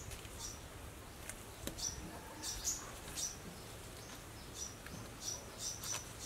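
A small bird chirping in short, high notes, about ten of them scattered through, coming closer together near the end.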